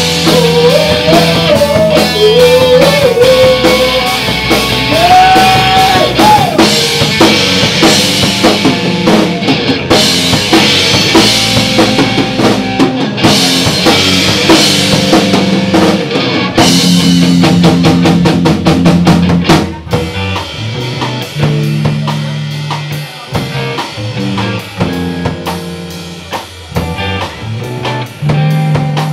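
Live rock band playing loud, with a full drum kit and electric guitars; a flurry of rapid drum hits leads into a quieter, bass-heavy stretch about twenty seconds in.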